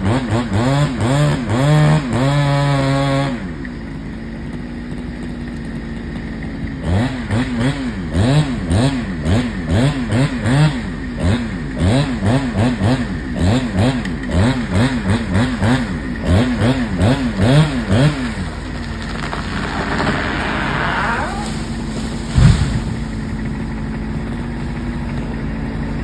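A two-stroke chainsaw revving up and down repeatedly while cutting a tall poplar, dropping to a steady idle between cuts. About 20 seconds in a rush of branches is heard, then one heavy thud as the tree hits the ground.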